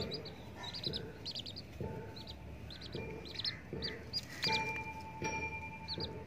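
Baby chicks peeping: many short, high cheeps coming in quick clusters throughout.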